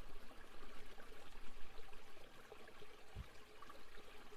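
Gentle waterfall ambience: a steady wash of flowing, trickling water, with a brief low thump about three seconds in.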